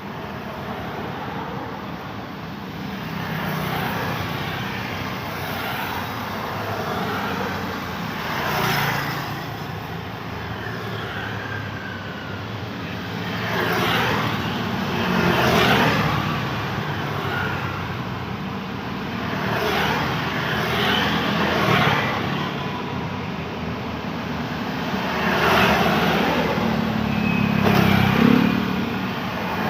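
Road traffic: cars and motorbikes passing one after another over a steady background roar, each pass swelling and then fading, with a louder low engine hum toward the end.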